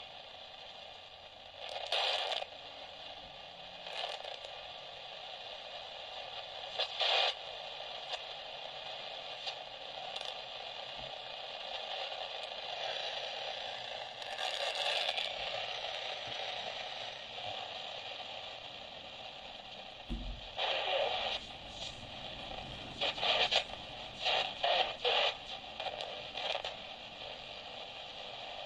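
Medium-wave hiss and static from a small portable shortwave/MW radio's speaker as it is tuned across the band, broken by frequent sharp crackles that come thicker near the end; a thunderstorm is making the band noisy. One low thump about two-thirds of the way through.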